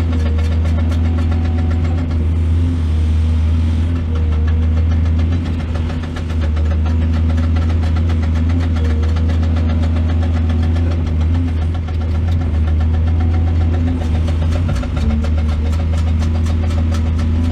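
Excavator's diesel engine running steadily, a continuous low drone with a fast, even firing pulse. It eases off briefly about six seconds in and again near twelve seconds.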